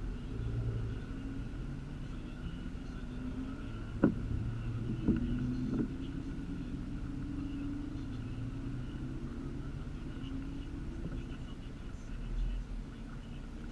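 A vehicle engine running steadily at cruising speed, with road rumble. There are three sharp knocks about four, five and six seconds in.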